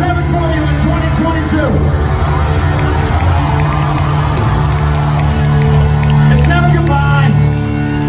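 Live rock band playing at full concert volume, with a steady low note held underneath the guitars and a crowd shouting over the music.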